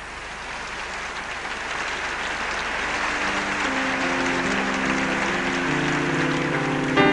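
Audience applauding, the clapping swelling over the first few seconds. About three seconds in, music notes come in underneath and grow louder.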